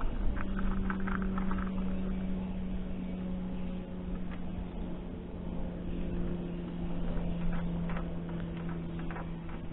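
A steady engine drone whose pitch sags slightly over several seconds, over a low rumble, with a few short clicks near the start and again near the end.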